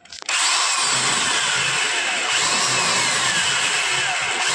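Electric hand drill starting up and running steadily as its bit bores a screw hole through the sheet-metal base frame of an air-conditioner outdoor unit, with falling whines from the bit cutting the metal.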